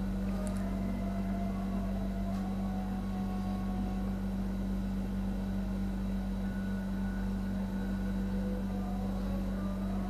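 Steady low mechanical hum that does not change.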